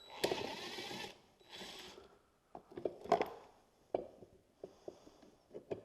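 Impact driver with a T30 Torx bit running in two short bursts, a louder one of under a second and then a quieter one, backing out bolts. Scattered clicks and knocks follow.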